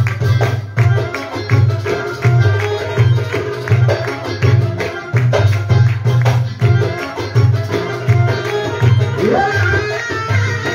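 Live Arabic band music: keyboard with a steady bass beat about twice a second under a busy hand-drum rhythm and a melody line.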